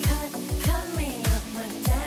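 Pop song with a singing voice over a deep kick drum that falls in pitch on each stroke, about one beat every 0.6 seconds.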